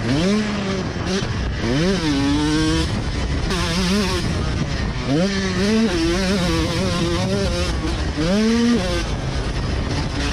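Motocross dirt bike engine heard from on the bike, revving up and down under the rider's throttle. Its pitch climbs sharply and falls back about four times: near the start, around two seconds in, about five seconds in and about eight seconds in.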